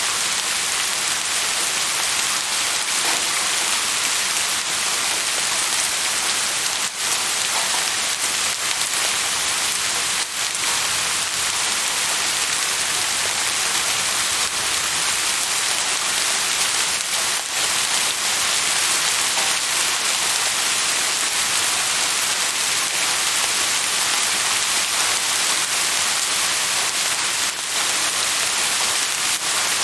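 Steady rain falling on a surface, a dense even hiss with scattered drop ticks.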